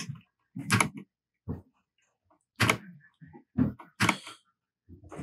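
Single keystrokes on a Royal Kludge RK100 mechanical keyboard with Gateron red linear switches, about five presses irregularly spaced with quiet gaps between.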